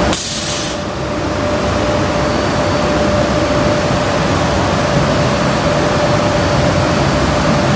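Powder-coating booth's air extraction running: a steady rushing of air with a constant hum. A brief, sharper high hiss comes in the first second.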